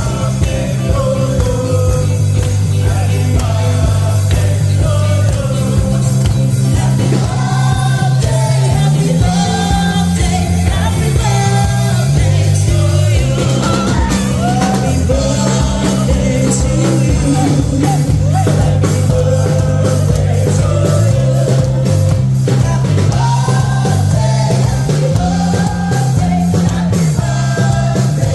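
Background rock song with a male or female vocal and a steady bass line.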